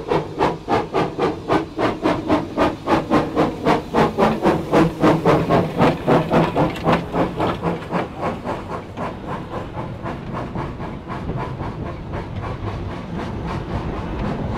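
Manning Wardle six-coupled saddle-tank steam locomotive passing with a freight train, its exhaust chuffing at about four beats a second. The beats fade about seven seconds in, and the wagons roll past with a steady rumble of wheels on the rails.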